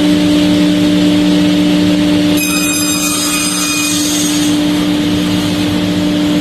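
A machine or vehicle engine drones at a steady, unchanging pitch. About two and a half seconds in, a higher whine joins briefly.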